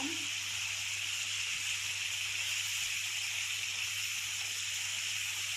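Marinated chicken pieces frying in hot oil in a pan: a steady sizzle, the meat already browning.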